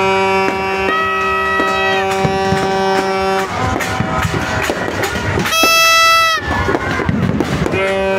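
Long, steady horn-like notes sounding over a crowd, the loudest about five and a half seconds in, with the pops and crackles of a New Year fireworks display scattered throughout.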